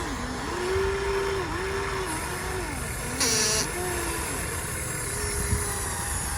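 Radio-controlled hydraulic excavator model's pump motor whining, its pitch repeatedly dipping and recovering as the hydraulics take load. A short hiss about halfway through.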